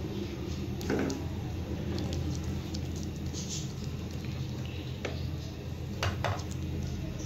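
Silicone spatula stirring a thick, cornflour-thickened sauce in a nonstick pan, with wet squishing and a few short scrapes or knocks against the pan, the clearest about a second in and around six seconds in. A steady low hum runs underneath.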